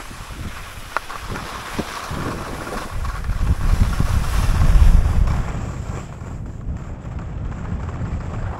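Wind buffeting the microphone, loudest about four to five seconds in, over a steady hiss, with two small clicks about a second in.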